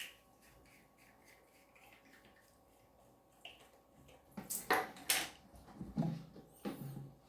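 Hard objects being handled: a few light clicks, then louder scraping clatter and knocks from about four seconds in.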